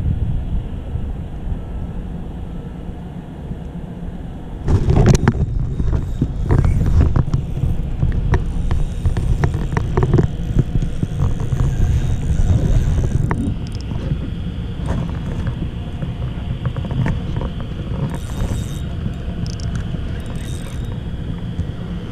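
Wind rumbling on the microphone, steady and low. From about five seconds in it grows louder, with scattered knocks and clicks of gear being handled in the kayak.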